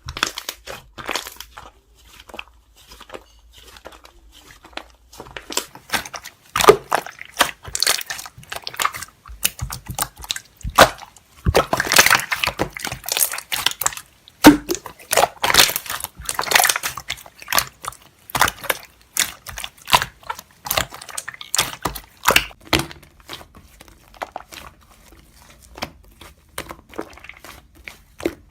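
Slime being squeezed, poked and stretched by hand, giving an irregular run of sticky clicks, pops and squelches.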